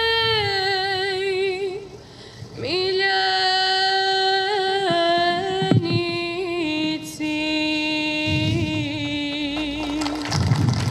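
Slow music: a single voice sings long, held notes with some vibrato, with a short break about two seconds in.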